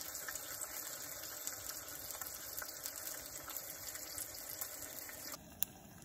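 Bacon sizzling in a frying pan on a canister camp stove, a steady hiss. It cuts off abruptly about five and a half seconds in, leaving a quieter background with a single click.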